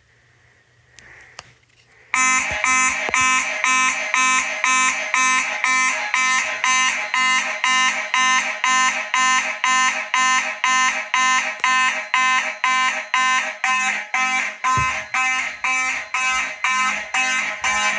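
Mechanical fire alarm horns sounding in evenly pulsed blasts, about two a second, starting suddenly about two seconds in: the system has gone into alarm from a smoke detector test.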